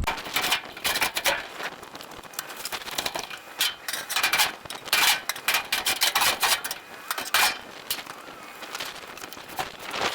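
Scrap metal and shelving being handled and loaded, with irregular scrapes, rattles and knocks.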